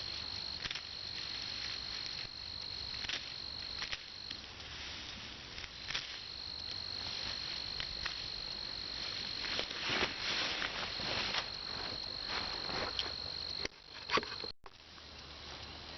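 A steady high-pitched insect trill that breaks off for a couple of seconds about four seconds in and stops shortly before the end. Under it are intermittent rustles and snaps of dry brush and limbs being handled.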